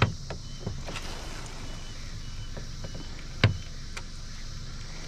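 Small fishing boat on the water: a steady low rumble with a few sharp knocks against the hull, the loudest about three and a half seconds in.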